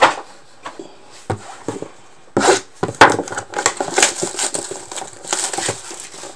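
Shrink-wrapped cardboard trading-card box handled on a tabletop: a sharp knock at the start and a few light taps. Then, from about two and a half seconds in, crinkling and rustling of the plastic wrap with clicks as the box is turned in the hands.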